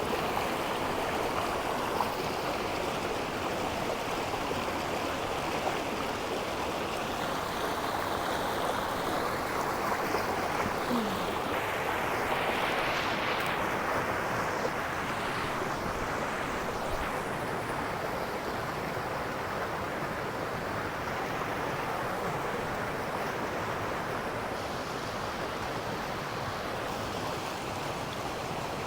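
A swollen river rushing steadily, an even wash of flowing water running high after heavy rain.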